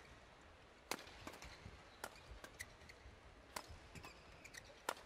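Faint badminton rally: sharp cracks of rackets striking the shuttlecock, the clearest about a second apart, with lighter taps between.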